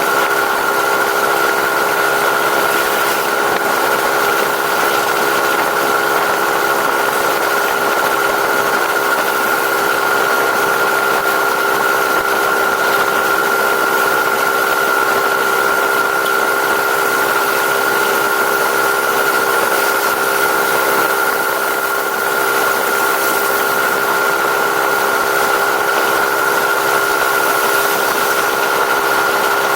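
Engine running at a steady speed through its stock exhaust, even in level throughout, with a steady whine on top.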